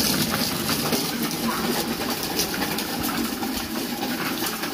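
Hard plastic wheels of a child's ride-on toy car and a training-wheel bicycle rolling over concrete paving blocks: a steady rumble with small clicks and rattles.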